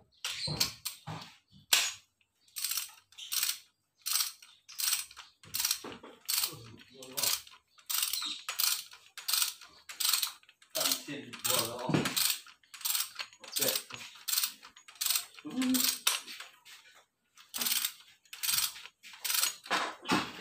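Ratchet wrench clicking in quick, evenly paced back-and-forth strokes, about two a second, as a socket runs down the cylinder head bolts on a Mitsubishi L300 diesel engine.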